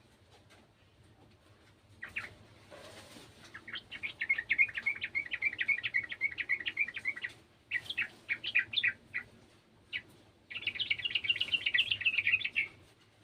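Sooty-headed bulbul singing in rapid chattering runs: a long bout of about three and a half seconds, a short burst, then a final run of about two seconds, after a brief rustle near the start.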